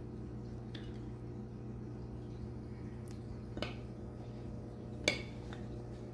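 A metal spoon clinking against a plate and a glass baking dish while serving stuffing: a few light clinks, the loudest about five seconds in, over a steady low hum.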